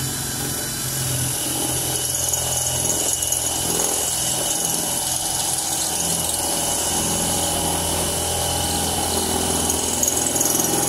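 Cordless drill running steadily, its step drill bit cutting through a coin clamped in a vise to enlarge the centre hole, with a steady high whine.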